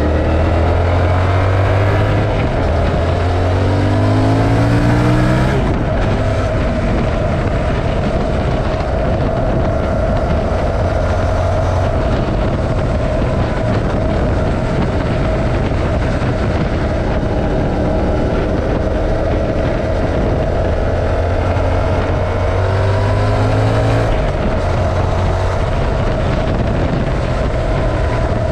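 Stock Yamaha MT-07 parallel-twin engine and exhaust under way, steady and loud. Its pitch climbs as it accelerates in the first few seconds, drops back about five seconds in and holds steadier through the middle, then climbs and drops again about three quarters of the way through. Steady wind and road noise run underneath.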